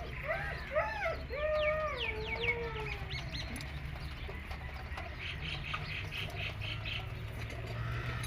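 Chickens calling: several drawn-out, falling calls overlap in the first few seconds, then a quick run of short clucks, about four a second, comes around the middle. A steady low rumble runs underneath.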